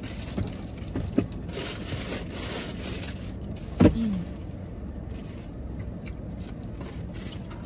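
Burger wrapper paper crinkling and rustling while burgers are handled and eaten, with small clicks. About four seconds in comes a short, louder vocal sound.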